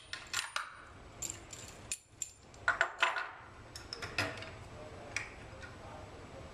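Metal clinks and clanks as a tri-clamp is undone and the sampler's T and auger assembly is separated from its motor: a scatter of sharp taps, loudest in a cluster about three seconds in.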